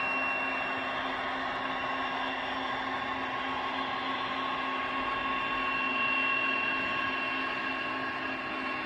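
Digital diesel engine sound from an OO gauge model locomotive's DCC sound decoder, played through the model's small speaker. It runs steadily, with a few held tones over the engine noise.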